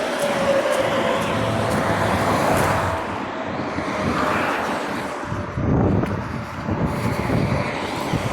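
A motor vehicle running close by, with a thin steady whine that sinks slightly and fades over the first few seconds and a swell of low rumble later on.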